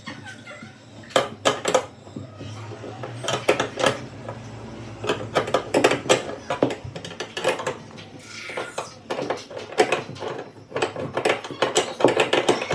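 Irregular metallic clinks and knocks, as of metal bed-lift hardware and fasteners being handled and fitted.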